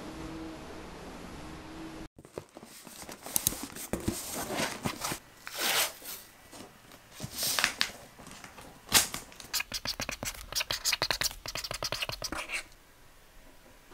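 Brown packing tape ripping off its roll in two long pulls, then a felt-tip marker scratching in quick strokes as it writes on a cardboard box.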